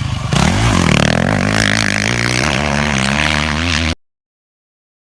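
Motocross motorcycle engine running loud, then revving with rising and wavering pitch as the bike accelerates. The sound breaks off abruptly about four seconds in.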